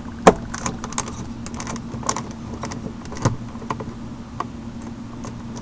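Irregular small clicks and taps of hand tools against plastic trim and clips while a car door panel is worked apart, with a sharper knock about a quarter second in and another just past three seconds, over a steady low hum.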